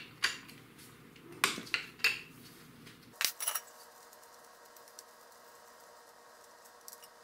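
Wrench on the engine's 12 mm steel drain bolt, loosening it: a few sharp metallic clinks over the first three and a half seconds, then only faint ticks.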